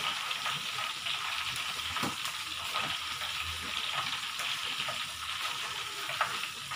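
Tofu cubes sizzling in hot oil in a wok, stirred continuously with a wooden spatula that scrapes and knocks against the pan now and then. The tofu is half-cooked and is kept moving so it puffs up round and crispy.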